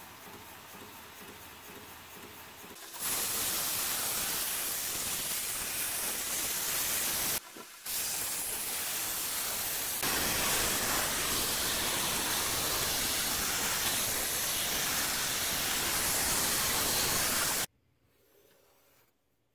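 Belt grinder running with a knife edge held against a fine belt for sharpening, giving a loud, steady hiss. The hiss starts about three seconds in, drops out briefly in the middle and stops sharply near the end.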